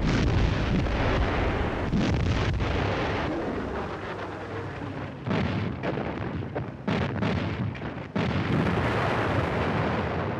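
Battle sound: a dense run of explosions and gunfire with a continuous rumble, with fresh blasts hitting about two, five, seven and eight seconds in.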